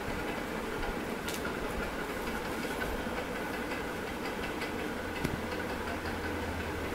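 Steady whirring background noise with a low hum, like a room fan or air conditioner, and two faint clicks, about a second in and again about five seconds in.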